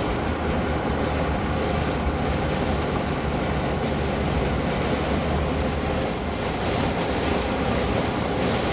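Steady wind rushing across the microphone, with a constant low rumble underneath.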